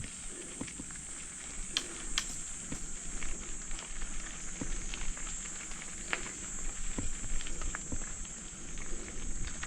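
Footsteps on a mountain trail: irregular crunches and taps, over a steady high-pitched hiss.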